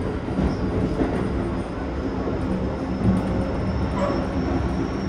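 Interior running sound of a Keikyu 1000-series train car with Toshiba IGBT-VVVF drive: a steady rumble of wheels on rail, with a thin high whine from the traction drive that slowly rises in pitch as the train gathers speed.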